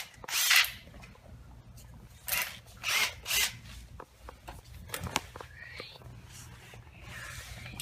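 A handheld power drill run in four short bursts, followed by a few light clicks and knocks of handling.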